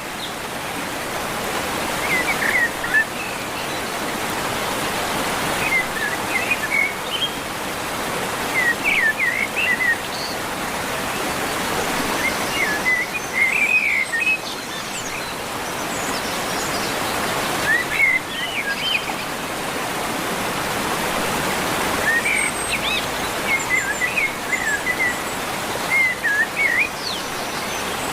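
Steady rush of a waterfall, with birds chirping in short runs every few seconds over it.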